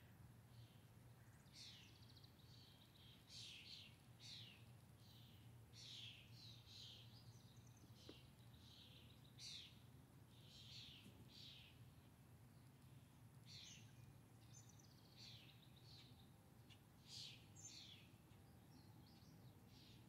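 Songbirds chirping faintly, short high downward-sweeping calls repeated every second or so, over a steady low background rumble.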